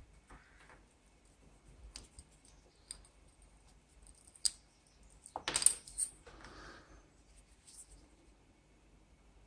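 Small metallic clicks and taps from a wristwatch being handled as its tag is removed, with a louder cluster of rattling clicks about five and a half seconds in.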